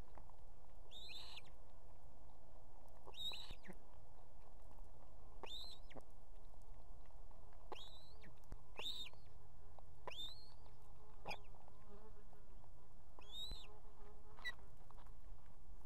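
Ospreys at the nest giving short, high chirping calls, repeated about once every one to two seconds while the chicks are fed fish.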